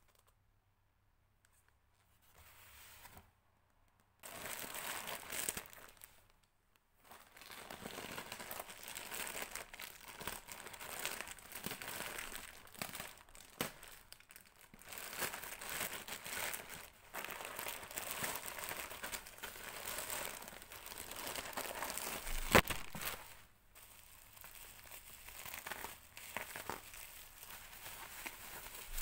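Packaging being handled and opened by hand: continuous crinkling with some tearing, after a quiet start, and one sharp click about three-quarters of the way through.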